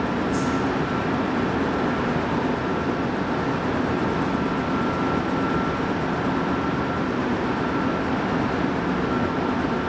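Montreal Metro train standing at the station platform, its onboard equipment giving a steady hum with a thin, constant high whine over it. There is a short high click about half a second in.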